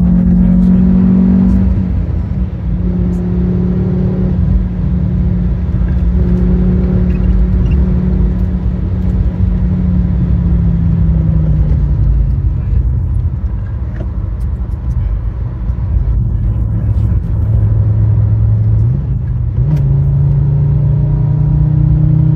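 The five-cylinder 2.4 engine of a 2004 Fiat Stilo Abarth running at speed over a steady rumble of road and tyre noise. The engine note holds, then falls slowly as the car slows. About nineteen seconds in it steps back up and climbs again as the car accelerates.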